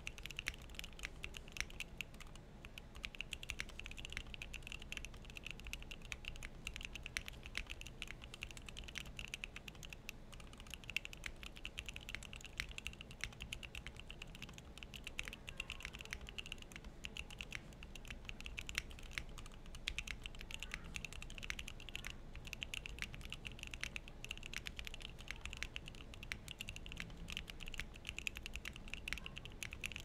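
Continuous typing on a Neo65 gasket-mount mechanical keyboard with a carbon fibre plate, stock Gateron EF Curry linear switches, clip-in stabilisers, XMI Hangul keycaps and no internal foam: a steady, unbroken stream of keystrokes.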